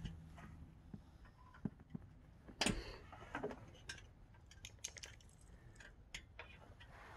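Scattered light metallic clicks and taps of hand tools working on a pickup's rear suspension fittings, irregular, the loudest about two and a half seconds in.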